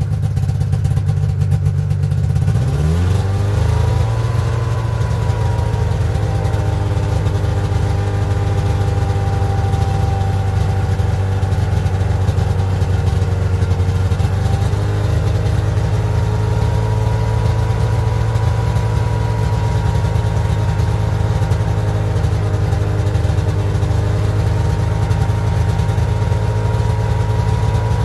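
A Ski-Doo snowmobile's fan-cooled two-stroke engine running. About three seconds in, the throttle is raised and the engine speeds up, then it holds a steady fast idle, climbing slightly again about halfway through. It is being run to burn off the last fuel after the tank was drained.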